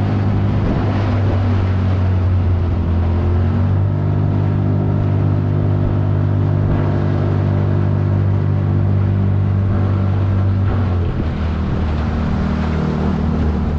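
Mercury 25 hp two-stroke outboard motor running under way, pushing an aluminium jon boat, with wind and water noise over it. The engine note shifts about four seconds in and again around eleven seconds in.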